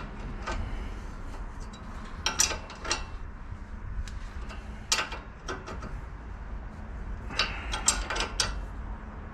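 Scattered sharp metallic clicks and clinks of hand tools and parts being handled, coming in small clusters about two and a half, five and eight seconds in, over a low steady hum.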